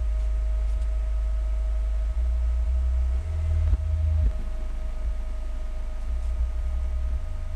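A car subwoofer driven by a Planet Audio AC2500.1M amplifier plays deep bass test tones that shift in pitch every second or so, during an amplifier power test at a 4-ohm load. A faint steady high whine runs underneath.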